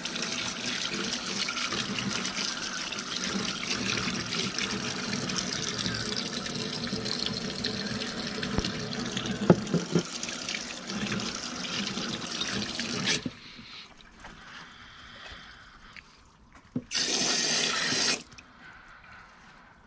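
Water running steadily, cut off abruptly about two-thirds of the way in; a few seconds later a second, short run of water lasting just over a second.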